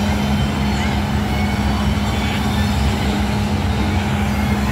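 A motor running steadily: a loud, even hum and rumble with a constant low drone.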